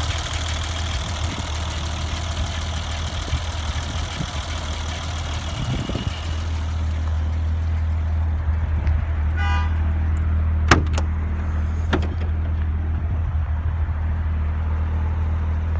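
The 1990 BMW 325i's 2.5-litre inline-six idling steadily. Its busier engine-bay sound thins out about six and a half seconds in, leaving a steady low hum. Two sharp clicks come a little over a second apart near the middle, as the trunk is unlatched and opened.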